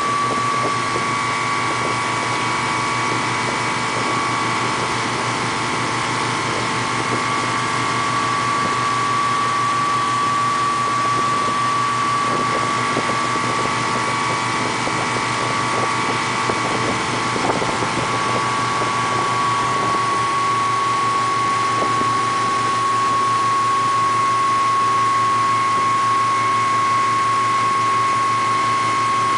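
Motorboat engine running steadily at towing speed, a constant high whine over a low drone.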